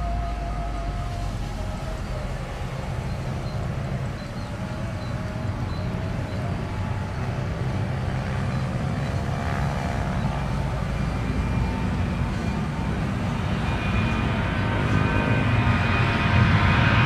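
Twin-engine jet airliner at take-off power on its take-off roll, a low rumble of jet engines growing steadily louder as it approaches and lifts off. A high fan whine comes in over the last few seconds.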